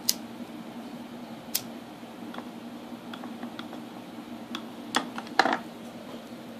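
A lighter being struck over and over to light the alcohol fuel: a string of sharp, irregular clicks, the loudest a short cluster about five seconds in, over a steady low hum.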